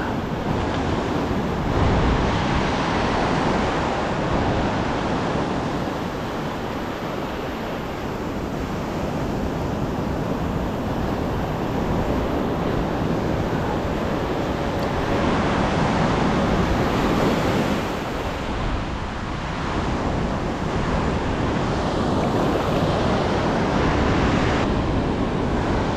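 Ocean surf breaking and foam washing up a sand beach, the rush swelling and easing every several seconds, with wind on the microphone.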